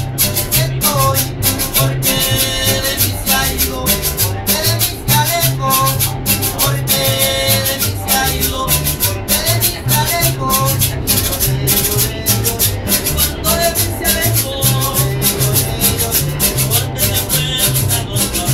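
Small acoustic band playing Latin-style music: a plucked upright bass line and guitar over a steady, crisp hand-percussion rhythm.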